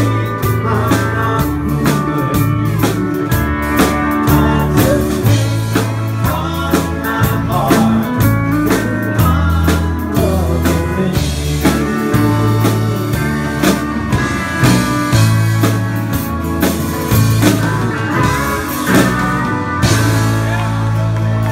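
A country band playing live, with strummed acoustic guitar, electric guitar, bass notes and a drum kit keeping a steady beat.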